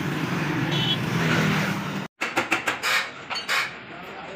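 Road traffic noise with a low engine hum, which cuts off abruptly about halfway through. A quick run of six or seven sharp metallic knocks follows.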